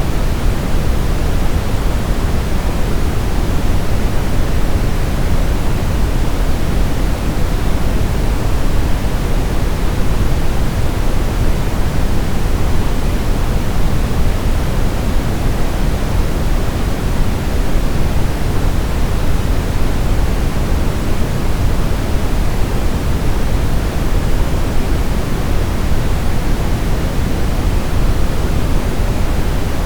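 Steady brown noise: an even, unchanging rumbling hiss weighted heavily toward the low end.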